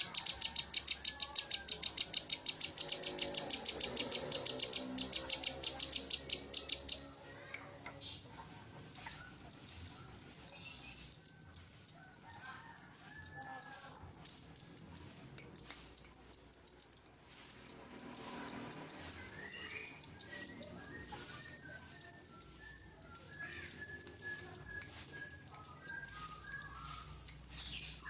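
Songbird masteran recording of a cucak jenggot (grey-cheeked bulbul) and a kinoi. It opens with rapid, evenly repeated high chipping notes, pauses briefly about seven seconds in, then gives a long run of high rapid repeated notes with lower warbling phrases beneath.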